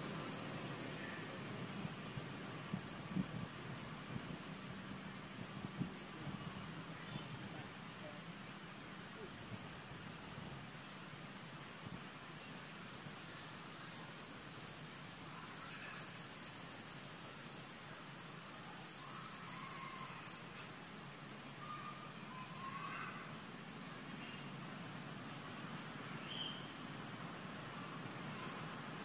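Insects in the trees keep up a steady high-pitched drone. A few short, faint calls come and go in the second half.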